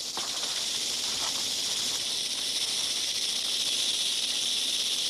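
Western diamondback rattlesnakes rattling: a steady, dry, high-pitched buzz, the defensive warning of disturbed snakes.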